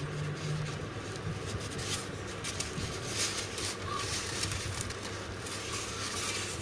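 Thermocol (expanded polystyrene) foam wing sections rubbing and crackling in irregular scratchy bursts as one is pushed onto popsicle-stick joiners in the other. A faint steady low hum runs underneath.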